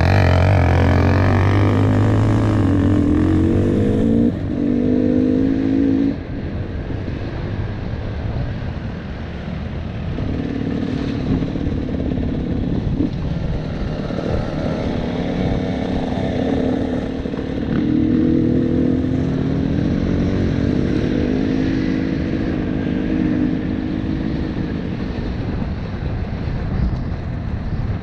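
KTM 300 TPI two-stroke dirt bike engine running under a rider's throttle, its pitch rising and falling as it revs. It is loudest for the first six seconds, then drops back and carries on at a lower, varying pitch.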